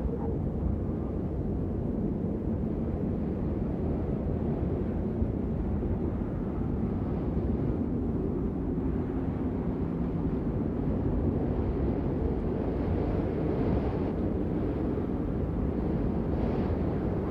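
Steady low rumble of outdoor ambience, with faint swells of hiss now and then.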